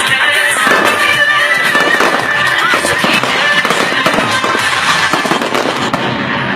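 Fireworks crackling and popping densely and continuously, with music playing along.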